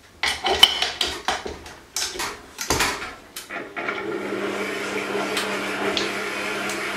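Clattering metal clicks as the creaming beater and the stand mixer's head are set down over the steel bowl. About four seconds in, the mixer's motor starts and runs steadily, beating butter.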